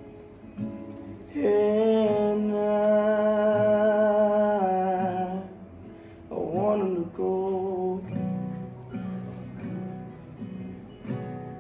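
A man singing to his own acoustic guitar accompaniment. About a second in he holds one long note, then sings a shorter phrase that slides in pitch.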